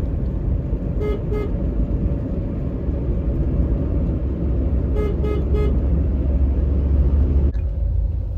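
Car horn tooting: two short beeps about a second in and three more around five seconds, over the steady low rumble of a car driving in traffic.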